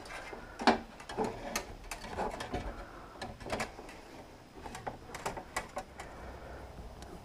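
Handling noise of a black electrical cable being fed by hand down through a hole in the wall: scattered clicks, taps and rustling, irregular throughout.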